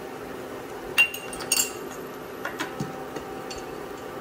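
A spoon clinking against kitchenware: a sharp ringing clink about a second in, a second clink half a second later, then several lighter taps.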